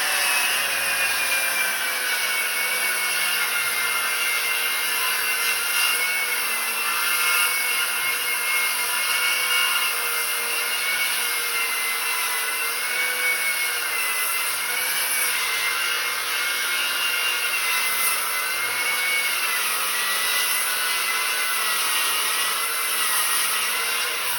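Handheld circular saw ripping a wooden board lengthwise with its edge guide, running continuously under load. The motor whine drops a little as the blade bites in, wavers slightly with the feed, and cuts off abruptly at the end.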